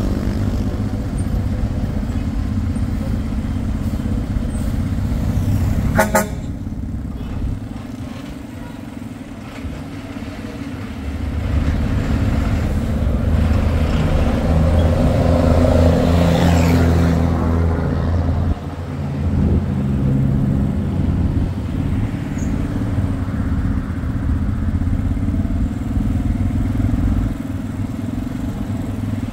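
Road traffic: motor vehicle engines running, with a short horn toot about six seconds in. The engine noise grows louder for several seconds in the middle, as if a vehicle passes close by.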